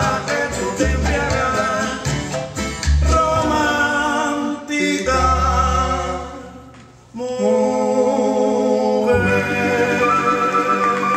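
Cuban son music with a singing voice. About halfway through the music thins and fades, then comes back in full abruptly a second or so later.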